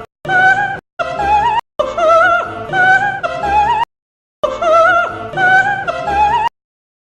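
Operatic soprano singing with a wide vibrato, moving in steps from note to note. The voice comes in four short phrases that cut in and out abruptly, with dead silence between them.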